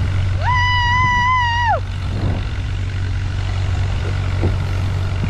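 Steady low rumble of a tractor-towed sled ride over snow. About half a second in comes one high, held shriek lasting over a second, rising at the start and dropping away at the end.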